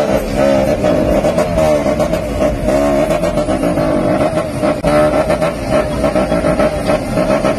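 A vehicle engine revving up and falling back over and over, its pitch rising and falling about once a second over a steady drone.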